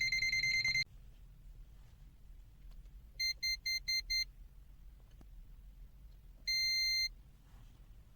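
Digital multimeter's piezo buzzer beeping during a non-contact voltage (NCV) check. A steady high beep cuts off about a second in; a quick run of five short beeps follows a few seconds later, and then a single beep of about half a second.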